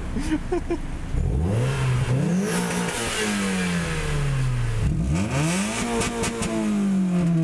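Car engine revving, twice: the pitch climbs quickly and then sinks slowly as the revs fall away.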